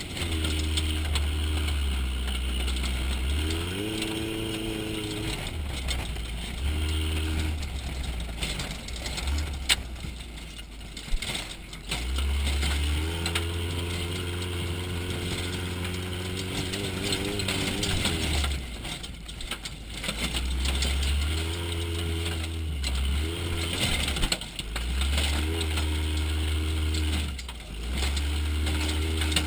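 Trophy truck running hard on a dirt road, heard from inside the cab: the engine's pitch climbs and drops several times as the driver accelerates and lifts off, over a steady low rumble and the rattle of the body. There are a couple of sharp knocks near the middle.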